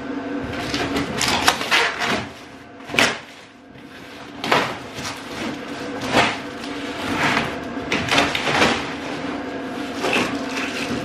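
Cardboard box being ripped open and pulled off a black plastic water tank, in a run of short tearing, crackling and rustling strokes. A steady hum runs underneath.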